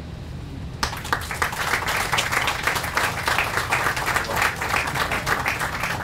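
Audience applauding: a crowd's clapping starts abruptly about a second in and carries on steadily.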